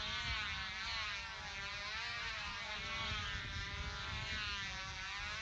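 Two control-line combat model airplanes' small two-stroke engines running with a high buzzing whine, the pitch swinging up and down in a steady cycle as the planes circle the pilots.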